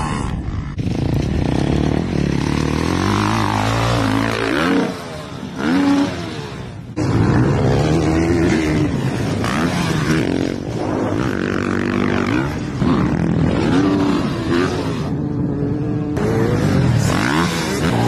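Dirt bike engines revving and running, the pitch rising and falling repeatedly as the throttle is worked, breaking off and changing suddenly a few times.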